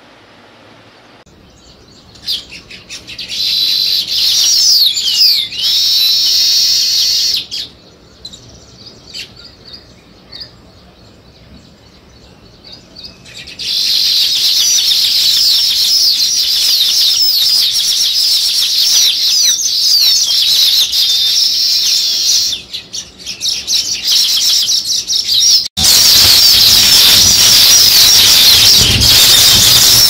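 A flock of baya weaver birds chattering in a dense, high-pitched twittering chorus. It comes in a burst a few seconds in, thins to scattered chirps, then runs on almost without pause from about halfway. Near the end it breaks off for an instant and comes back louder, with a low rumble underneath.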